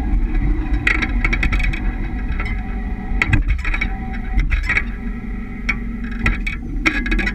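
Rear suspension of a 200-series Toyota HiAce lowered with 3-inch blocks, heard up close at the leaf spring while driving: steady road rumble with repeated sharp knocks and clicks in irregular clusters. The knocking is the rear bump stops touching down, a result of the lowering.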